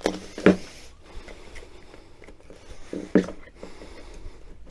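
Screwdrivers prying the rubber moulding of an MGB rubber bumper up off its steel frame and rivet shanks: low scraping with a few short knocks of metal on metal near the start, about half a second in and about three seconds in.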